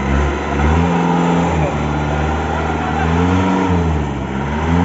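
Off-road 4x4 engine revving repeatedly, its pitch climbing and dropping back about three times.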